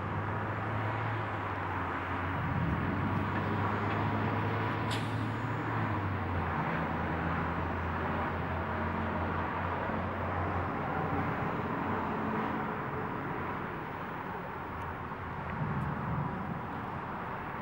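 Steady city traffic noise: an even hiss with a vehicle engine's low hum under it that stops about ten seconds in, and a brief high chirp about five seconds in.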